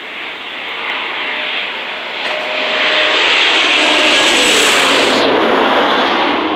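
Embraer E190 jet's twin turbofan engines at approach power as it passes low overhead on final approach: a steady rush that builds to its loudest about four seconds in, then eases slightly.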